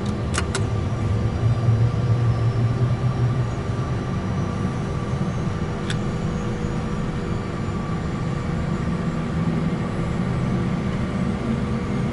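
A Cessna Citation business jet's second turbofan engine lighting off and spooling up during its start, heard inside the cockpit with the other engine already running: a steady whine over a low hum, with two sharp clicks just after the start and a single click about six seconds in.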